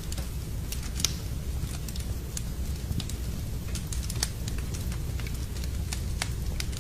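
Wood fire crackling in a fireplace: irregular sharp pops and snaps, the loudest about a second in and again past four seconds, over a steady low rumble.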